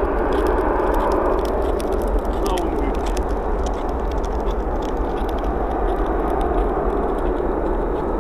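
Jet engines of a Boeing 747 at takeoff power, a steady loud rushing noise heard from behind as the jet rolls away down the runway, with many small clicks on the microphone.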